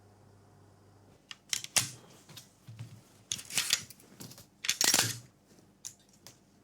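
A run of short rustles and clicks from objects being handled, irregular and of differing length, loudest around the middle and about five seconds in.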